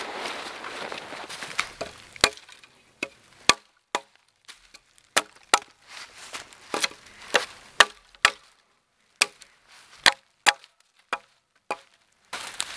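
Hatchet chopping into a pine log: a long series of sharp single strikes, roughly one or two a second, with short pauses between them. The first couple of seconds hold rustling of canvas and pine needles before the chopping starts.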